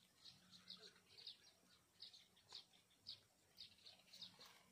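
Faint bird chirping: short high notes repeated about twice a second.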